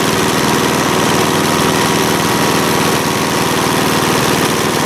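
The engine of a Mobile Dimension portable sawmill running steadily at an even speed, with no change in pace.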